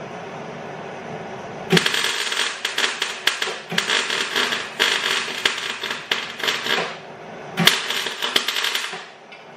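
MIG welder crackling as a weld is laid inside a car's front wheel arch: one run of about five seconds, then a shorter run of about a second and a half.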